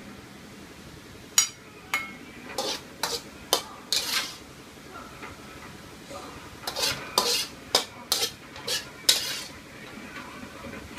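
Metal spatula scraping and tapping against an aluminium wok and a plate as stir-fried greens are shifted, in two spells of irregular sharp scrapes and clinks about a second and a half in and again past the middle.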